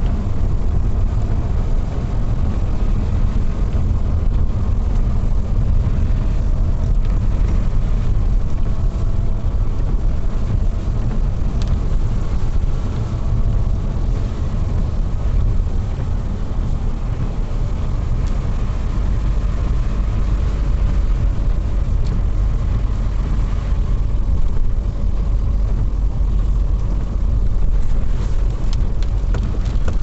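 A car driving on a wet road, heard from inside the cabin: a steady low rumble of engine and tyres.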